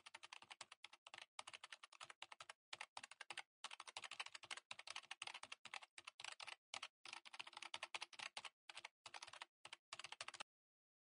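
Keyboard typing sound effect: quiet, rapid, uneven key clicks with short pauses, stopping about ten and a half seconds in.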